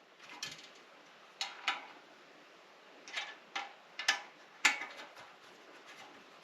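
Sharp, uneven metallic clicks and clinks of a wrench against the bolts and metal parts of a TV stand as they are snugged down by hand.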